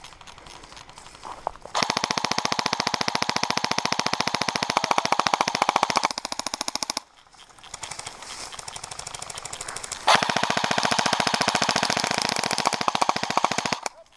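Airsoft rifle firing on full auto: two long bursts of rapid, even shots, each lasting several seconds, with a pause of about three seconds between them.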